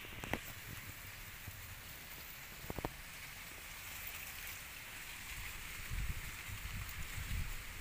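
Baby monkeys feeding from a plastic plate on grass: scattered small clicks and rustles, with a quick cluster of clicks about three seconds in, over a steady outdoor hiss. Low rumbling comes in over the last few seconds.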